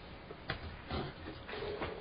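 Quiet room tone with a short click about half a second in and a few soft rustles after it.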